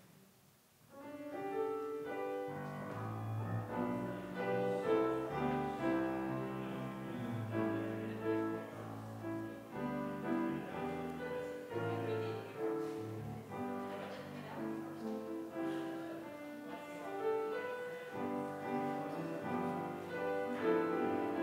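Instrumental postlude on piano, starting about a second in: a melody over chords, with the notes changing every half second or so.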